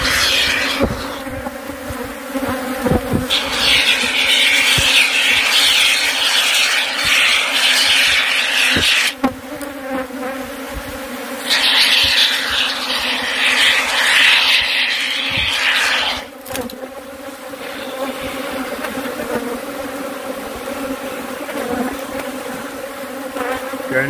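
A swarm of Africanized (killer) honey bees buzzing steadily around the hive, with a can of expanding foam spraying in two long hisses, each about five seconds, as the pipe opening is sealed. A few light knocks are heard.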